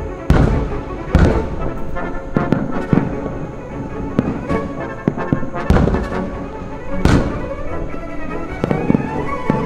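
Aerial fireworks bursting, a sharp bang about every one to one and a half seconds, some followed by a rumbling echo, over orchestral music from the live broadcast soundtrack, with strings rising near the end.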